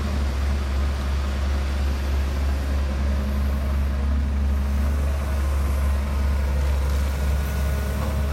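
Dump truck's diesel engine running steadily with a deep, unbroken drone.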